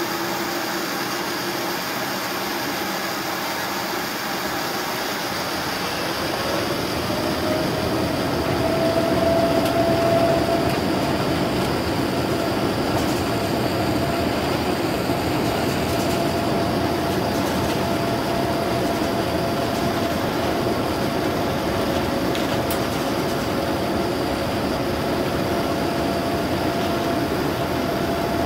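Boeing 787-9 cabin noise from the turbofan engines during taxi: a steady rushing hum with a whine that rises in pitch about six seconds in and then holds steady, a little louder from then on.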